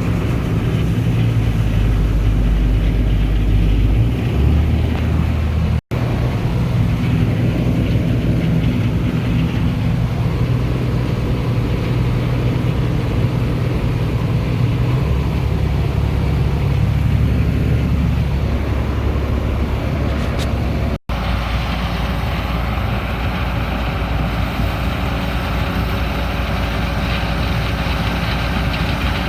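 Heavy farm diesel engine running steadily with a low drone whose pitch shifts a little. The sound cuts out abruptly twice.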